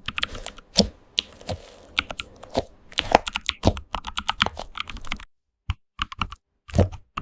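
Computer keyboard typing: quick, irregular key clicks, stopping abruptly about five seconds in, then a few scattered clicks after a brief gap.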